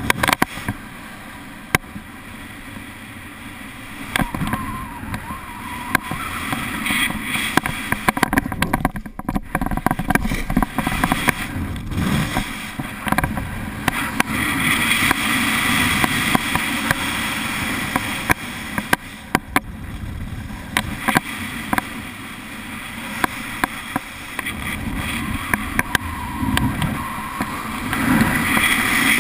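Wind rushing over a GoPro's microphone during a paraglider flight, swelling and easing as the air buffets it, with scattered sharp clicks and taps.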